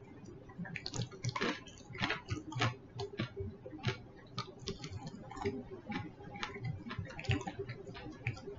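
A person eating fried chicken close to the microphone: irregular crunching and crackling bites and chewing, a few clicks each second, with soft mouth sounds.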